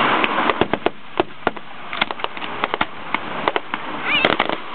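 Fireworks display: a rapid, irregular string of sharp pops and crackles from bursting aerial shells and crackling stars, over a steady hiss.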